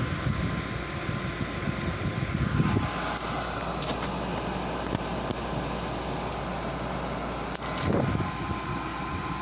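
Air conditioner running: the steady rush of its fan with a low hum and a thin steady whine. The rumble is heavier for the first few seconds, and there are a couple of light knocks about four and eight seconds in.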